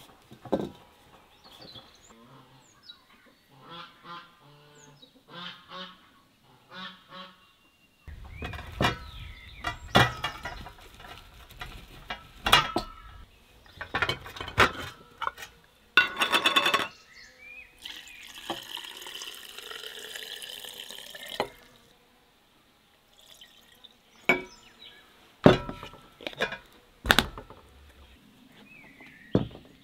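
Glass jars knocking and clinking as they are handled and set down, with liquid poured into a jar for about three seconds midway. Fowl and small birds call in the background.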